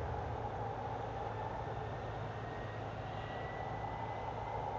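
Steady low rumble of distant engine noise, with a faint thin whine slowly rising in pitch from about halfway through.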